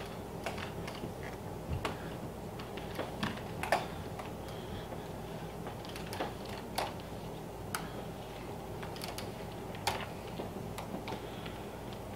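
Irregular light clicks and taps, roughly one or two a second, over a faint steady hum, as a man on crutches and a dog move slowly across the floor.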